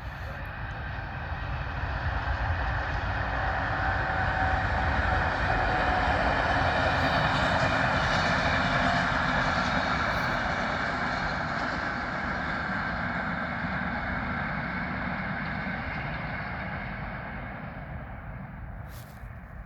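A fast passenger train passing while climbing a grade: its running rumble swells over the first few seconds, is loudest a little before the middle, and slowly fades away toward the end.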